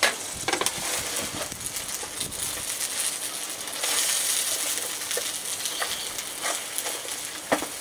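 Steady sizzling from food cooking on a hot gas barbecue, with a few sharp clicks and taps as vegetables are moved about in an aluminium foil tray.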